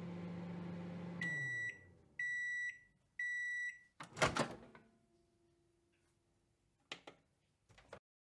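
Microwave oven sound effect: the oven's running hum winds down, then three beeps about a second apart signal that the timer has finished. A loud clunk of the door opening follows, then a couple of faint clicks near the end.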